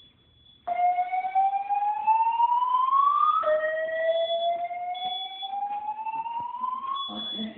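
Fire alarm starting up about a second in and sounding a slow whoop tone: two rising sweeps, each about three seconds long, climbing from low to higher pitch. A high, steady beep comes and goes over it.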